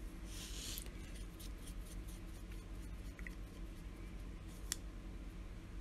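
Hands handling a vacuum-filler fountain pen: a brief rustle at the start, a few light ticks, and one sharp click about three-quarters of the way through, over a steady low hum.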